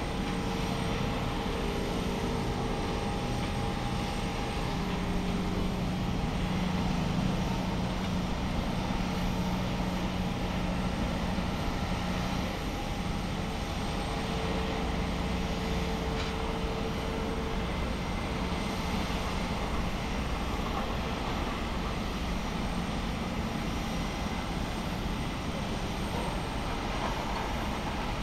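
Steady jet-aircraft noise across an airport apron: a continuous rumble with a few steady hum tones that come and go.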